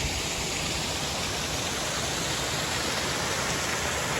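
Creek water rushing and splashing steadily over rocks.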